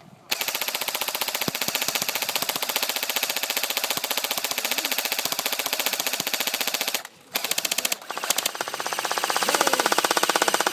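Airsoft gun firing rapid full-auto bursts, a fast, even stream of clicking shots: one long burst of about seven seconds, a short burst, then another that runs on.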